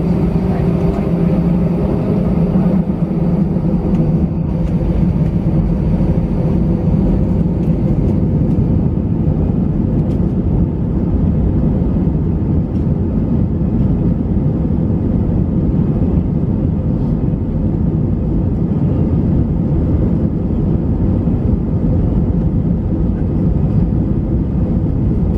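Jet airliner heard from inside the cabin while it rolls along the runway at speed: engines and wheels give a loud, steady rumble.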